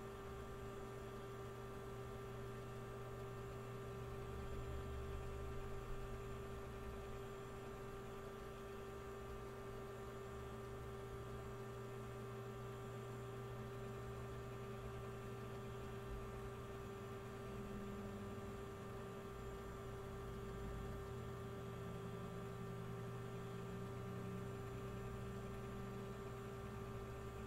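A steady hum: one constant mid-pitched tone with fainter steady tones above it and a low rumble beneath, unchanging throughout.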